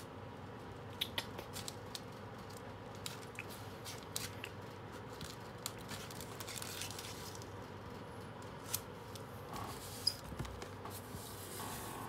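A cardboard shipping box being opened and handled: scattered small clicks and taps, with short rustles of cardboard and packing about halfway through and again near the end.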